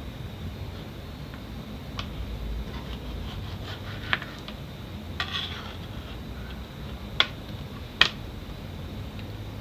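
Kitchen utensils clinking and knocking: a handful of separate sharp knocks and clinks, the two loudest near the end, over a low steady hum.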